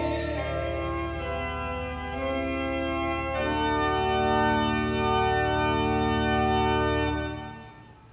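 Organ playing slow, held chords over a sustained deep bass note, moving to a new chord about three seconds in; the final chord fades out near the end.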